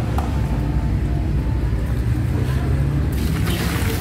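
A steady low rumble runs throughout. About three seconds in, water starts pouring out of a knapsack sprayer's tank and splashing onto tiles with a loud rushing splash.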